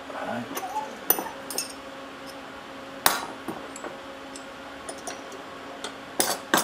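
Steel combination wrenches clinking and clattering on a wooden workbench as they are picked up and handled: scattered metallic clinks, a sharper one about three seconds in and a quick run of clinks near the end.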